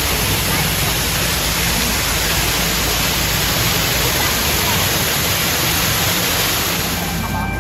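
Loud, steady rushing noise that cuts off abruptly near the end.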